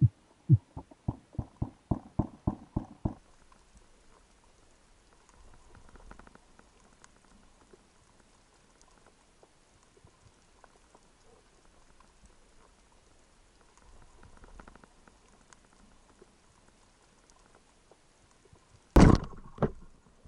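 Underwater sound from a diver's camera. It opens with a quick run of soft thumps, about four a second, that stops after about three seconds. Then there is faint low water noise, and a loud sharp knock comes near the end, followed by a smaller one.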